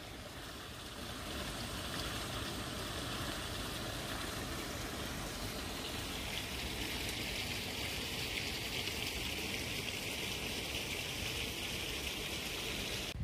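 Small woodland brook running: a steady rushing and trickling of water that grows brighter about halfway through.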